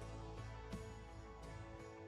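Quiet background music with plucked guitar notes over held tones.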